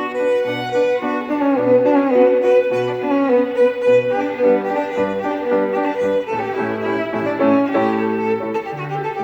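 Music: a violin playing a sustained melody over a lower accompaniment that sounds a short bass note about once a second.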